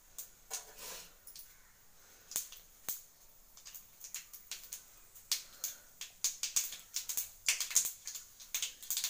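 Mustard seeds spluttering in hot sesame oil in an aluminium kadai: scattered sharp pops at first, coming thick and fast over the second half. This is the tempering stage, where the seeds are popped before the next ingredients go in.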